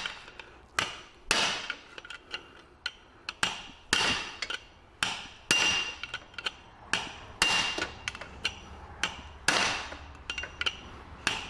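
Repeated hammer blows on metal, about one or two a second at an uneven pace, some leaving a short metallic ring. They are shocks struck at a stuck CV joint cup on the gearbox, trying to drive it off, and the cup does not come free.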